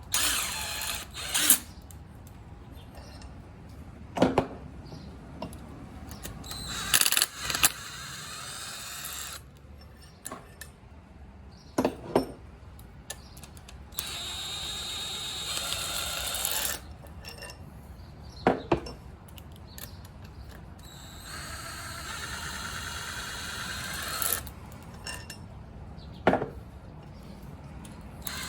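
Cordless power tool run in short bursts of a few seconds, with sharp metallic clanks about four times in between: cylinder head bolts being spun out to take the first head off the engine.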